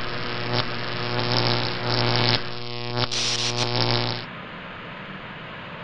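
A low, steady buzzing drone at one unchanging pitch, with a few brief breaks, that cuts off about four seconds in and leaves only a faint hiss.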